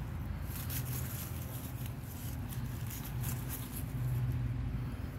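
Dry leaves and grass rustling in short, scattered crackles under a puppy's paws as it scrambles after a dangled plush toy, over a low hum that swells and fades.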